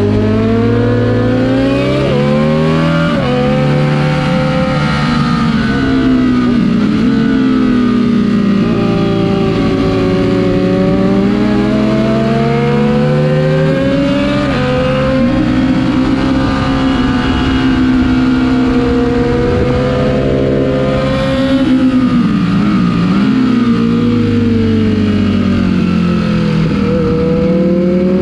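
Ducati Panigale V4S's V4 engine at track speed, heard from the bike itself, revving hard. Its pitch climbs and falls with the throttle through the corners, with a few sharp drops as the throttle is closed.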